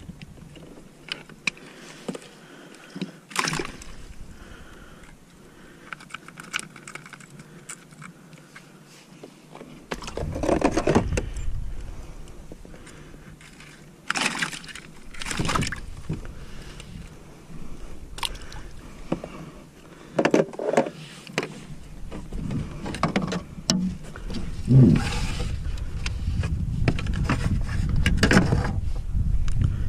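Handling noises on a kayak: scattered clicks and scrapes of a plastic fish gripper and hook while a caught fish is unhooked, then scuffs as it is laid on a plastic measuring board. A low rumble comes in during the last third.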